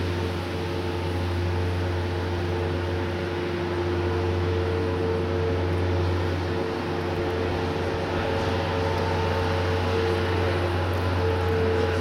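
A steady mechanical hum, a low drone with a couple of constant higher tones over an even hiss, running without change.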